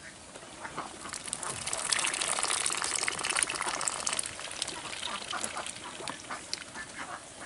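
Domestic ducks dabbling with their bills in basins of water, a busy run of quick wet splashes and slurps that grows busier about two seconds in.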